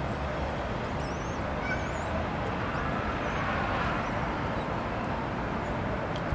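Common kestrel chicks in the nest giving a few faint, short, high cheeping calls over a steady rushing background noise.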